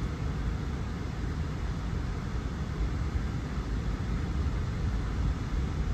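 Water gushing from a dam's discharge outlet and churning in the river below: a steady, deep rushing sound with no breaks.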